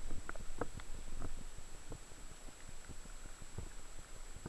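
Underwater sound picked up through a camera's waterproof housing: a low rumble of moving water with scattered soft clicks and knocks, busiest in the first second or so, and a faint steady high whine.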